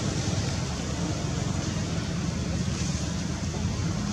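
Steady rushing outdoor background noise with a low rumble underneath, with no distinct events.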